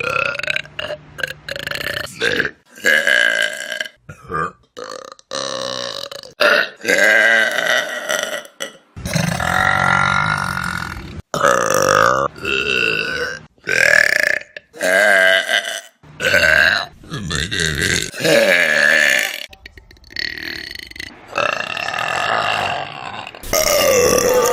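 Loud human burps, one after another with sudden cuts between them. Some are short, others long and drawn out, lasting a second or two.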